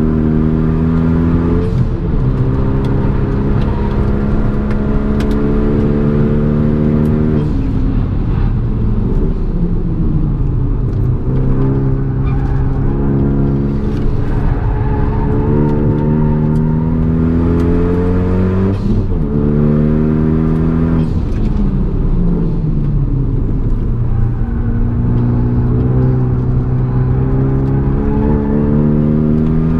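Renault Megane RS's turbocharged four-cylinder engine heard from inside the cabin on a fast track lap: revving up hard through the gears with its pitch climbing and dropping at each upshift, then falling away on lifts and downshifts for corners, over and over.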